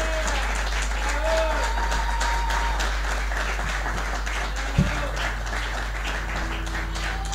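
Audience applauding steadily, with a few short shouts from the crowd, and a single thump about five seconds in.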